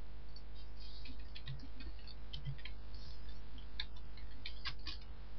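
Computer keyboard being typed on: an irregular run of light key clicks over a steady low electrical hum.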